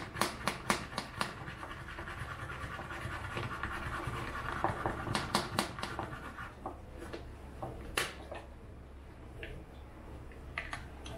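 Hand-pumped milk frother being worked: the mesh plunger is pushed up and down in a glass jug of milk, with quick clicking strokes at first and then a steady swishing hiss as the milk foams. A few separate clicks follow near the end as the plunger is stopped and the lid is lifted out.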